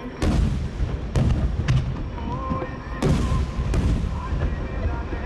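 Aerial firework shells bursting in a fireworks finale: about five sharp bangs over four seconds, each followed by a low rumbling echo.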